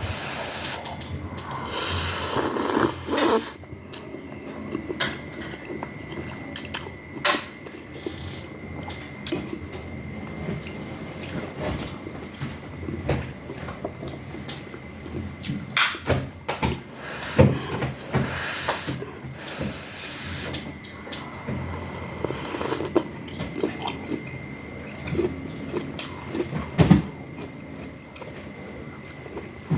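Close-miked eating sounds of rice noodle soup: wet slurps of noodles and broth, chewing, and small clicks of utensils against the bowl.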